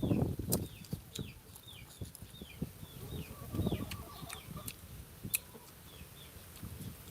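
Bird peeping: short falling peeps repeating about twice a second, with a few low knocks near the start.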